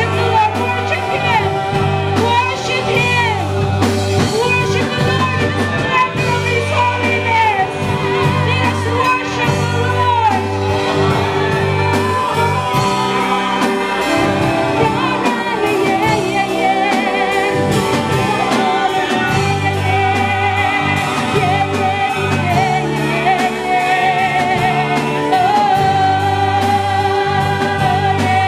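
Christian worship song: singing over guitar and band accompaniment with a steady bass.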